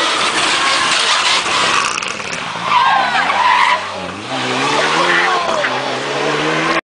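Rally car racing past and sliding through a bend, its tyres skidding, then its engine revving up in pitch as it accelerates away. The sound cuts off abruptly near the end.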